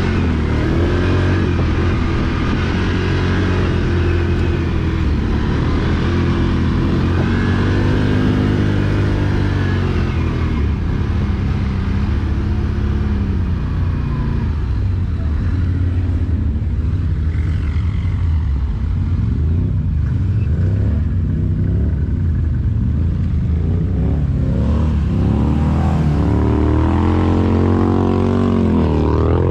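ATV engine running under way, its pitch rising and falling with the throttle.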